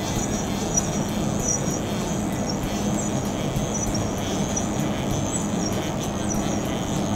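Syil X5 CNC milling machine jogging its table slowly back under handwheel control: a steady mechanical hum with a faint high whine from the axis drive.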